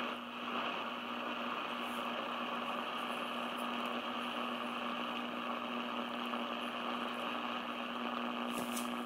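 Shortwave receiver's speaker hissing with static while it is tuned across the band with no station, a steady low tone under the hiss. The noise cuts off suddenly at the end as the band is switched.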